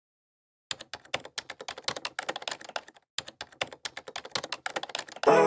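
Computer keyboard typing sound effect: rapid key clicks in two quick runs with a short break between them. Music comes in loudly just before the end.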